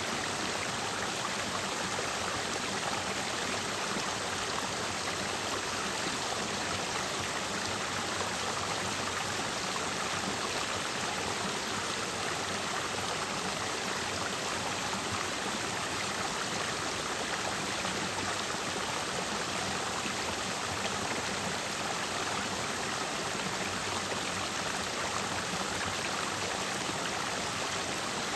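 Clear mountain stream flowing and splashing over rocks, a steady, unbroken rush of water.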